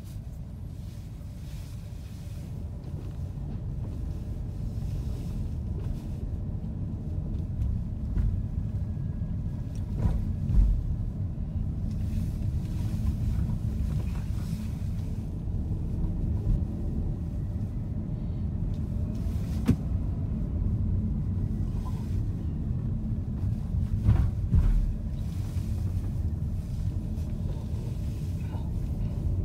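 Steady low rumble of a car being driven, its road and engine noise heard from inside, with a couple of louder knocks about ten seconds in and again near twenty-four seconds.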